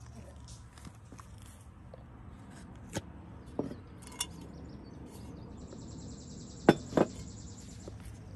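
A ceramic pitcher handled on a glass tabletop: a few light clinks, then two sharper knocks close together as it is set back down. A high, rapidly pulsing trill runs through the second half.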